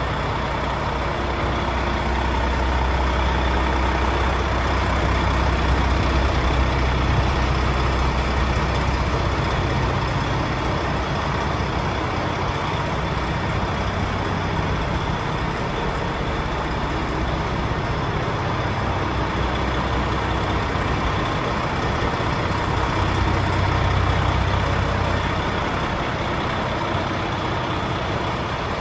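Paccar MX 460 six-cylinder turbo diesel of a DAF XF105 tractor unit idling steadily, a deep, even rumble that swells slightly a couple of times.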